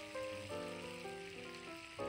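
Background music with a melody of short, changing notes, over the steady sizzle of breaded chicken fillets shallow-frying in oil in a pan.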